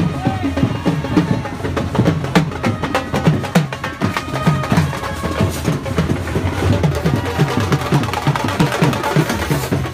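A baraat street band playing: dhol drums beating a fast, steady rhythm, about three or four strikes a second, with brass over them.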